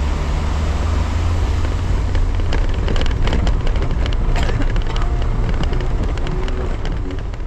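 Maruti Gypsy 4x4 driving slowly off a steel bridge and onto a rocky dirt track: a steady low engine and road rumble, with frequent sharp knocks and clatters from stones and the jolting body from about two seconds in.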